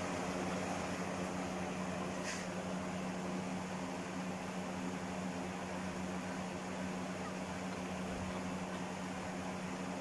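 Steady mechanical hum with a strong low drone, holding even throughout.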